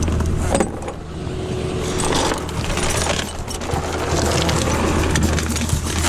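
Truck engine running steadily, with metal chains clinking and rattling as they are handled.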